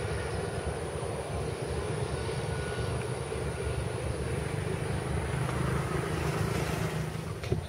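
Propeller aircraft engine running with a steady drone on the runway, cutting off abruptly with a click near the end.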